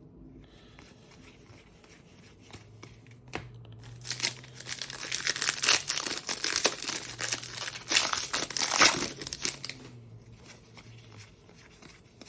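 A sealed Panini Contenders football card pack being torn open, its wrapper crinkling. It is loudest from about four to ten seconds in, with quieter rustling before and after.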